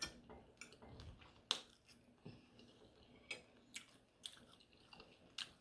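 Faint, irregular wet clicks of a person chewing a mouthful of chicken enchilada with the mouth close to the microphone.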